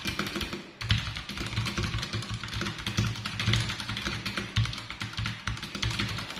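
Fast typing on a Redragon K630W mechanical keyboard with brown switches: a dense run of key clacks, not very loud, with a short pause just under a second in.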